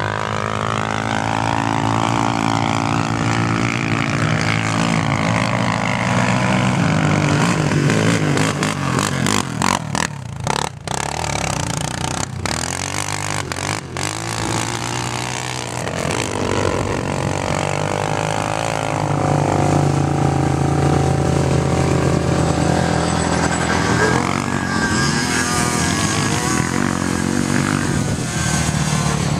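ATV engines revving under load as quads climb a sand dune, their pitch rising and falling with the throttle. A nearer quad grows louder about two-thirds of the way in.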